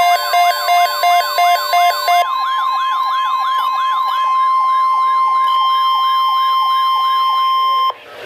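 Weather radio emergency alert tone, a steady tone near 1 kHz, layered with electronic siren sounds: rapid rising-and-falling yelps throughout and a pulsing beeping tone that stops about two seconds in. Everything cuts off abruptly just before the end, ahead of the broadcast voice.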